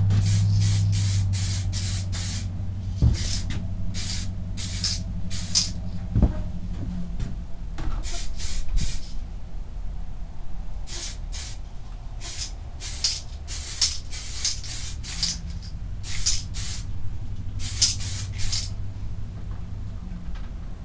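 Aerosol can of DuraBlue spray-on bluing hissing in many short bursts, each well under a second, grouped in clusters with pauses between them, as light coats go onto the rifle's metal. A steady low hum runs underneath, with a couple of faint knocks early on.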